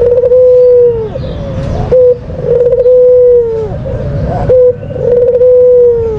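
A white turtle dove (puter putih) cooing loudly, to the point of clipping. It gives a repeating phrase about every two seconds: a long held coo that drops in pitch at the end, then a short stuttered note, three times over.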